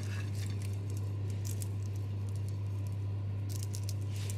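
A steady low hum, with faint soft ticks and rustles as cooking thread is pulled out of a roasted stuffed beef roast.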